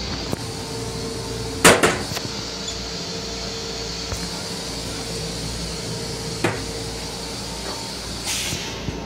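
Plastic toilet seat of an LIRR M7 railcar toilet being lowered and landing on the bowl with a loud clack and a quick second knock about two seconds in, over the railcar's steady hum and rumble. A lighter knock follows later, and a short hiss comes near the end.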